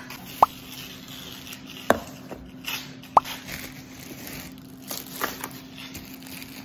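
Plastic grocery bags rustling and crinkling as groceries are lifted out and set down, with three short sharp clicks over the first few seconds, under a faint steady hum.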